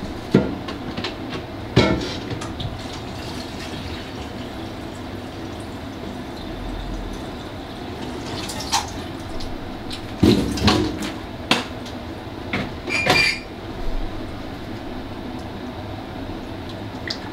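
Scattered knocks and clinks of a cooking pot and utensils over a steady low hum, with several close together about ten to thirteen seconds in.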